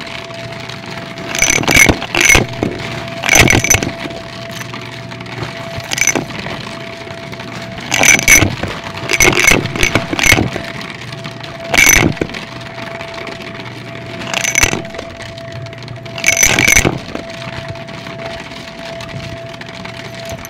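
Stick vacuum motor running steadily as it sucks up coins from a shaggy rug, with clusters of sharp metallic clinks and rattles every few seconds as coins are pulled through the floor head into the bin.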